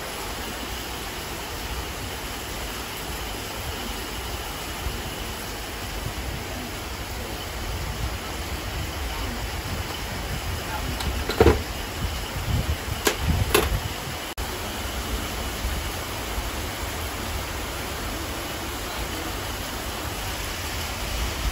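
Steady hiss of background noise, with a short cluster of sharp knocks and clacks about halfway through as a motorcycle wheel mounted on a wheel balancer is handled.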